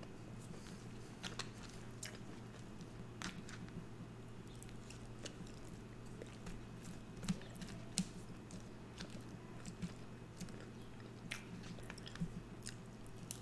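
Close-miked chewing and mouth sounds of a person eating soft, sauce-covered fries, with scattered small clicks and smacks over a faint steady low hum.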